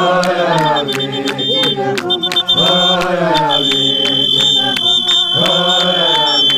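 Mpondo traditional group singing together in short phrases over steady hand clapping. A high, steady piping tone sounds in snatches early on, then is held for about four seconds from the middle.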